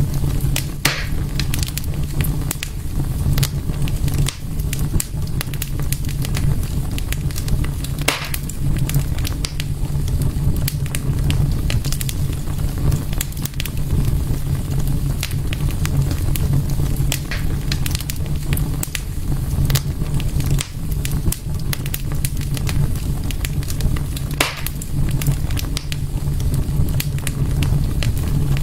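Wood fire burning in a fireplace: a steady low rumble of flames with constant crackling, and a few louder pops, one about a second in, one around eight seconds in and one near the end.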